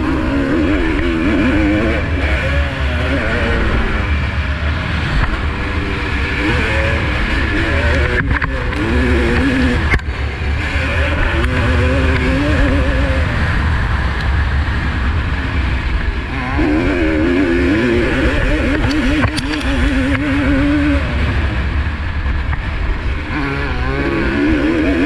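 Single-cylinder two-stroke engine of a 1985 Honda CR250R motocross bike revving hard, its pitch climbing and dropping over and over as the throttle opens and closes through the gears, over a steady low rumble.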